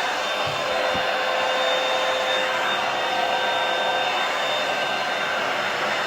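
Hair dryer blowing steadily while blow-drying hair: a constant rush of air with a steady whine over it.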